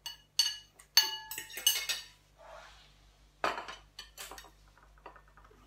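Porcelain dishes and metal cutlery clinking as food is served at the table: several sharp clinks, some ringing briefly, then a soft scrape in the middle and a duller knock a little later.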